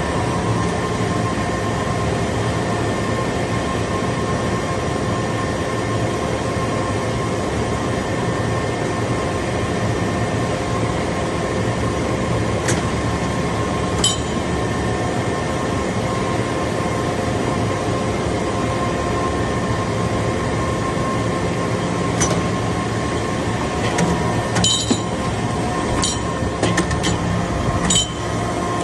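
Metal shavings baler's hydraulic power unit running steadily with a constant hum, with sharp metallic clinks a few times, more often in the last several seconds.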